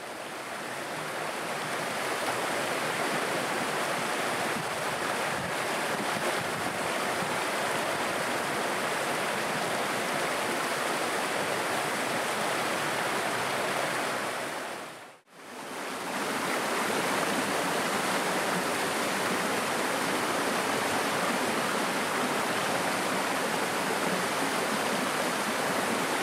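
A small rocky hill stream rushing over stones and a little waterfall, a steady, even rush of water. It fades in at the start, drops out briefly just past halfway, and comes straight back.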